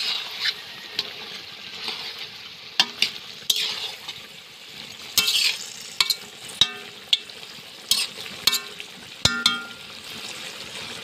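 Duck meat and fried potatoes sizzling in a metal kadai while a metal spatula stirs them, scraping and knocking against the pan in irregular strokes, some clanks ringing briefly.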